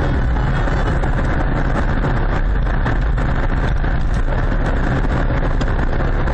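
Steady engine and road noise inside a moving car's cabin.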